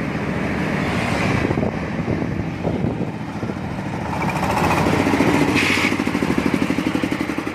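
An engine running with a rapid, regular chugging pulse that grows louder about four seconds in.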